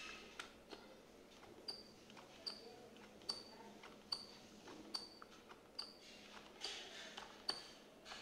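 HP KM300F keyboard's space bar pressed over and over near its left end, a little more than once a second; each press gives a click with a short, high squeak. The squeak comes from the space bar after a month of use and is worst when pressed from the left side.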